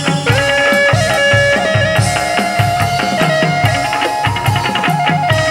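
Chầu văn ritual music played without singing: a steady drum beat under plucked strings and a melody of long held notes.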